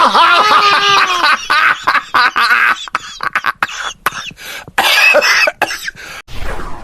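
A person's voice: a brief cry-like sound, then a long run of short coughs.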